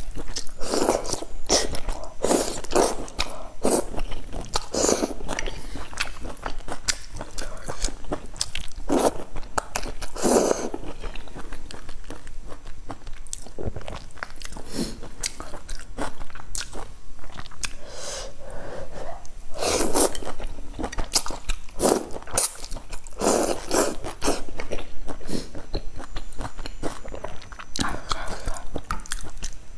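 Close-miked eating: a person biting and chewing noodles and other food from a soup bowl, with irregular crunches and mouth sounds picked up by a clip-on lavalier microphone.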